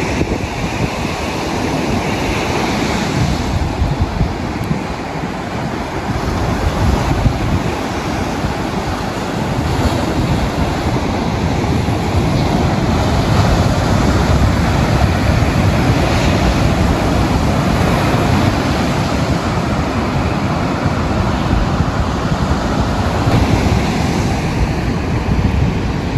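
Ocean surf breaking on a beach, a continuous rushing wash that swells and eases, with wind buffeting the microphone.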